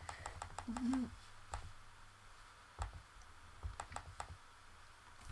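Computer mouse clicking: a quick run of about five clicks in the first second, then single clicks a second or so apart. A short murmur from a voice comes about a second in.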